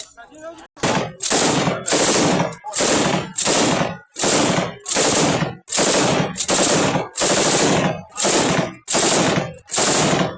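AK-47 assault rifle sound effect: about a dozen short bursts of automatic fire in a steady run, each about half a second long with brief gaps between.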